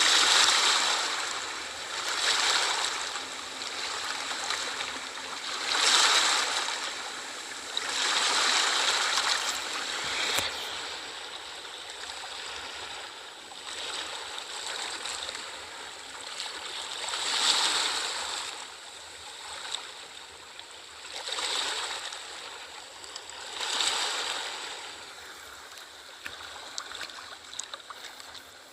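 Ocean waves washing onto the shore, each one swelling into a rushing hiss and then fading, one every few seconds. The surges are strongest in the first ten seconds and softer after.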